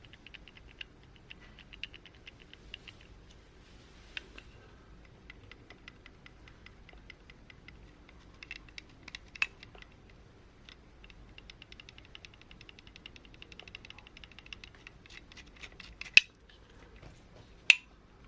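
Motor pinion and spur gear of an RC crawler transmission turned by hand to check the gear mesh, the teeth ticking lightly and rapidly in several runs. Two sharp clicks near the end.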